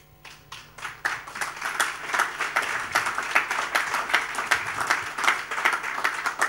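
Congregation applauding: a few scattered claps that build within a second into dense, steady applause.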